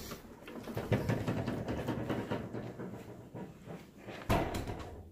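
Footsteps and handling knocks as someone walks through a stairwell, with one louder thump about four seconds in.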